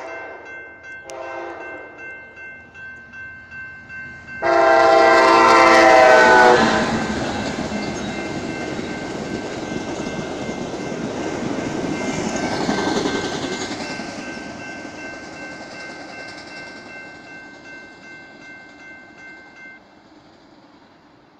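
Amtrak Talgo passenger train sounding its horn for a grade crossing: a blast that ends just after the start, a short one about a second in, then a loud long blast from about four and a half to six and a half seconds. The train then passes with a rush of wheels on rail that swells around thirteen seconds in and fades away. A crossing bell rings steadily throughout and stops near the end.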